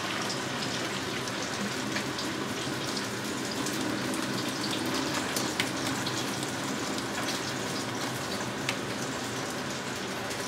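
Hot pasta cooking water poured from a pot in a steady stream into a stainless steel sink, splashing on the sink bottom; the stream thins near the end.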